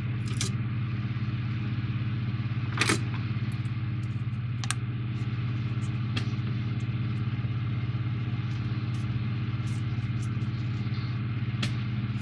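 Light clicks and taps of model kit parts being handled and fitted into a frame, the loudest about three seconds in, over a steady low hum.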